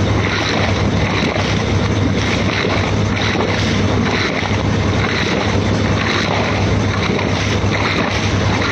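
Strong wind buffeting a phone microphone outdoors: a loud, steady rushing noise over a constant low hum.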